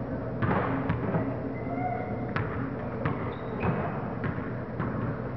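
Pickup basketball on a hardwood gym floor: the ball bouncing and hitting with irregular, echoing thumps, and sneakers giving short squeaks on the court, over a steady low hum.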